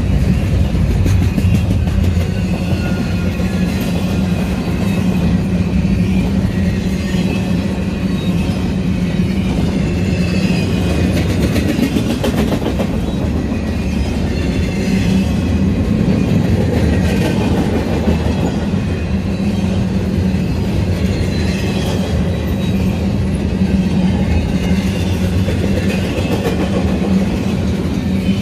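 Freight train of empty double-stack intermodal well cars rolling past, steel wheels clicking and clacking over the rail joints in a steady, loud rumble.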